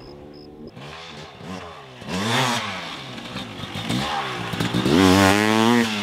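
Fuel-injected Husqvarna TE500 two-stroke dirt bike engine revving in repeated throttle bursts, its pitch rising and falling. It is fairly quiet at first, blips up about two seconds in, and gives its loudest rev near the end.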